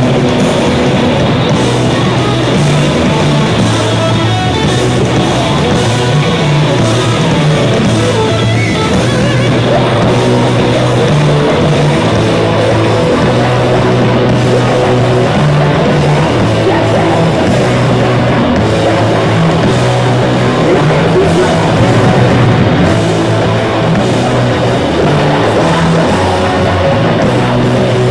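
A punk band playing live and loud: distorted electric guitars, bass and a drum kit.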